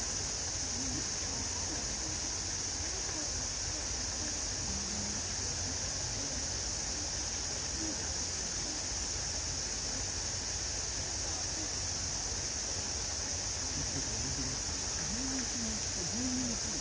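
A steady, high-pitched drone of insects, with a faint murmur of voices now and then.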